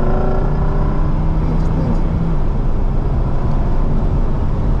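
Lamborghini Huracán's V10 engine running under throttle, heard from inside the cabin over dense road and wind rumble; its steady note drops slightly about two seconds in.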